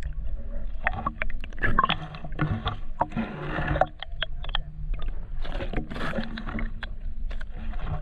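Muffled underwater water movement picked up by a submerged camera, with irregular clicks and knocks as it pushes through water weeds, over a steady low hum.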